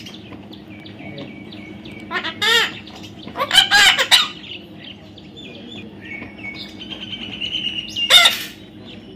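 Birds calling: loud harsh squawks about two and a half, four and eight seconds in, with thin high chirping notes between them.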